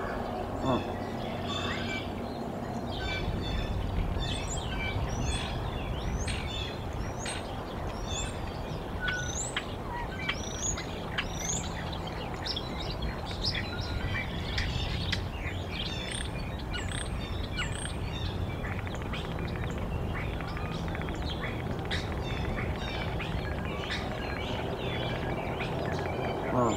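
Small wild songbirds chirping and twittering, with many short high calls scattered throughout, over a steady low background rush.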